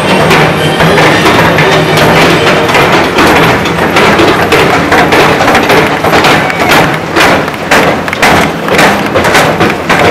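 Loud percussion-driven music, with sharp regular hits about two a second through the second half.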